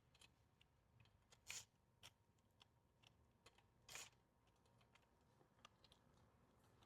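Near silence with a few faint, scattered short clicks, the clearest about one and a half and four seconds in.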